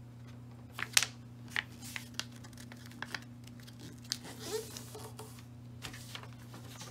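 A sheet of paper being folded and pressed flat by hand against a tabletop: scattered rustles and crisp crackles, the sharpest about a second in. A steady low hum runs underneath.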